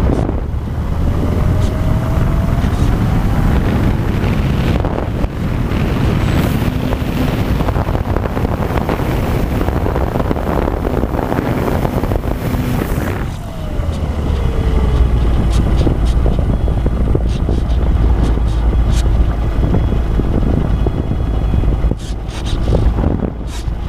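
Wind buffeting the onboard microphone of a small electric RC airplane in flight, a steady heavy rush. The electric motor's faint whine rises in pitch a few seconds in and falls away at about the halfway point, where the rush drops back.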